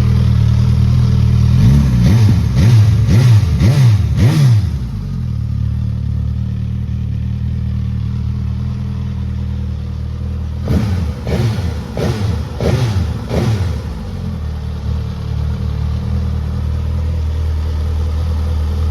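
Suzuki GSX-S1000's inline-four engine with its stock exhaust idling, then blipped quickly about five times in a row, settling back to idle, and blipped again in a second run of about five quick revs before returning to a steady idle.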